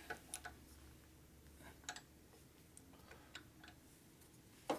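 Faint metal clicks of a socket wrench on an extension tightening a nut on a motorcycle engine, coming in short pairs about every second and a half.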